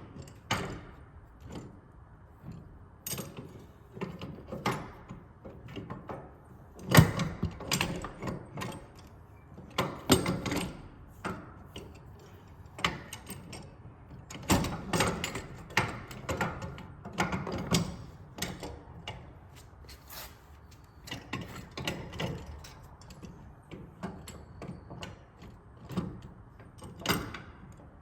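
Irregular clicks and knocks of hand work with mechanical parts, with a louder knock about seven seconds in and others near ten and fifteen seconds.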